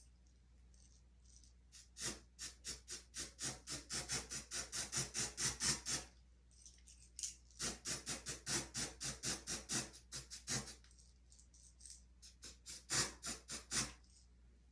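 Hair-holding spray being sprayed onto a wig's lace in quick short bursts, about four a second, in three runs, with short pauses between.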